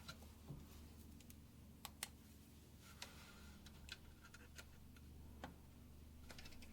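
Faint, irregular small clicks and taps of desktop PC hardware being handled, over a steady low hum.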